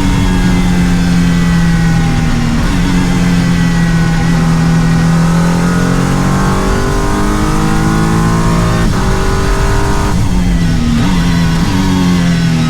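Racing car engines at high revs, the pitch climbing and then dropping back with each gear change several times over.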